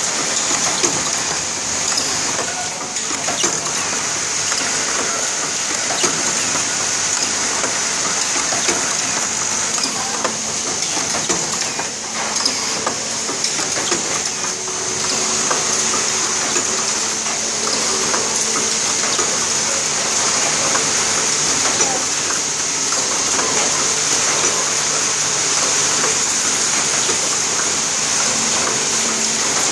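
Automatic hanger hook assembly machine running: a loud, steady hiss with many small irregular clicks and knocks from its pneumatic cylinders and feeders.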